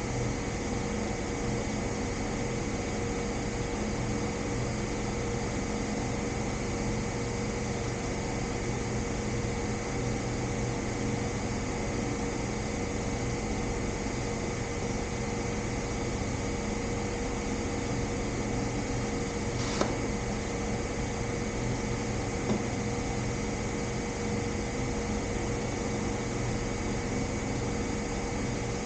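Steady mechanical hum of a running machine, even throughout, with two short clicks about twenty seconds in and a couple of seconds later.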